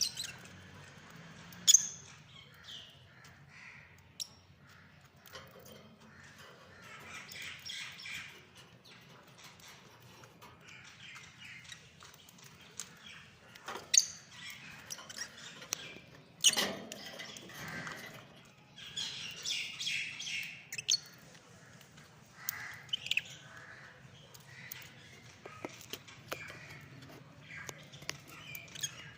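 Lovebirds chirping and squawking in short, scattered calls, with denser bursts of chatter around the middle. Three loud, sharp clicks stand out: one about two seconds in and two more around the middle. A faint steady low hum runs underneath.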